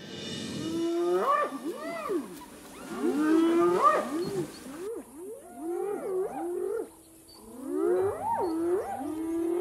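Spotted hyenas calling: several overlapping whooping calls that swoop up and down in pitch, in four bouts with short gaps between them.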